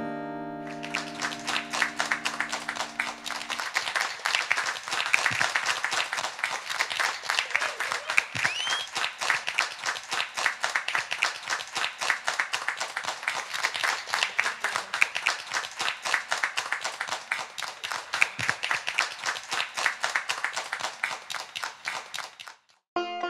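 Hand clapping and applause at the close of a live acoustic song, with the band's last chord ringing out under it for the first few seconds; the clapping stops abruptly near the end.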